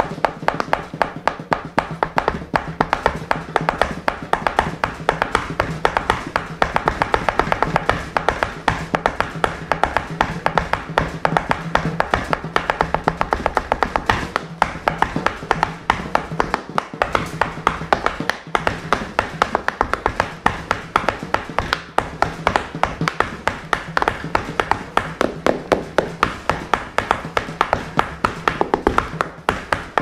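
Tap shoes striking a raised wooden board in a rapid, continuous rhythm of sharp taps, several a second, with a steady low tone held beneath them through about the first half.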